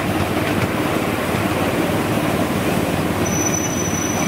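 Steady rumble and rapid clatter of a miniature railway passenger car's wheels running along the track during a ride. A thin, high, steady squeal comes in about three seconds in.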